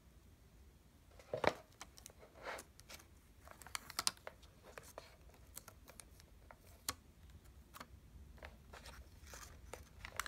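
Clear protective plastic film being peeled off the back of a new tablet, crinkling and crackling in irregular bursts and clicks, loudest about one and a half seconds in.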